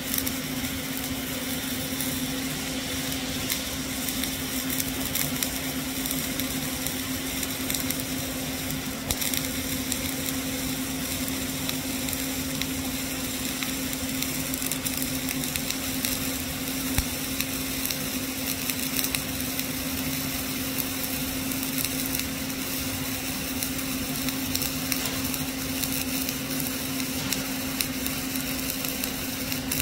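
Flux-cored arc welding arc with CO2 shielding gas burning continuously through a root pass: an even crackling sizzle with a steady low hum underneath.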